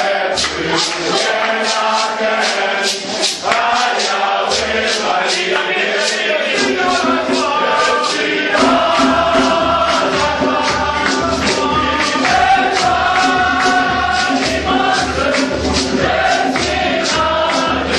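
Music: a group of voices singing together over a steady percussion beat, with a low bass pulse joining about six and a half seconds in.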